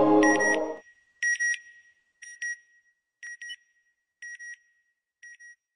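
Ambient electronic music ends about a second in, while a high electronic double beep repeats about once a second, six times, fading with each repeat.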